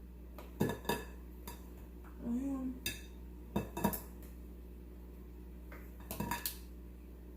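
Sharp clicks and clacks of eating a seafood boil by hand, shellfish shells and utensils knocking against a dish, in several small clusters. A short hummed voice sound comes in the middle.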